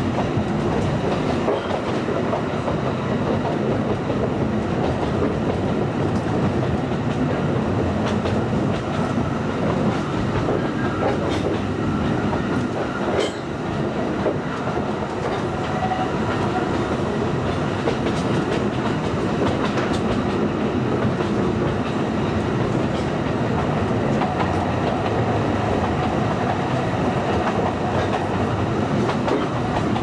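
Alishan Forest Railway narrow-gauge train running steadily, its wheels rattling over the track, heard from aboard a passenger car, with one sharper click about halfway through.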